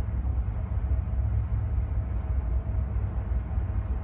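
Wind buffeting the microphone: a steady, uneven low rumble, with a faint steady hum above it.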